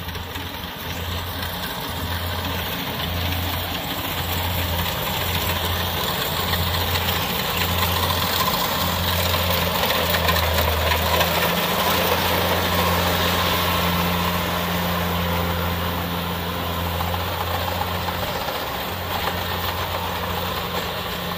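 Kubota DC70 Plus rice combine harvester running under load as it cuts and threshes rice: its diesel engine's low hum throbs about once a second beneath the dense clatter and rush of the cutter and threshing drum. It grows louder in the middle as the machine passes close.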